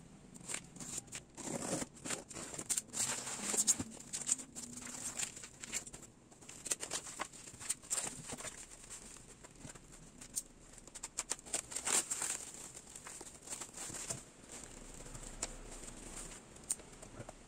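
Cardboard parcel being opened and plastic-wrapped foam packaging unwrapped and handled: irregular crinkling, tearing and rustling of plastic film with scattered clicks and knocks.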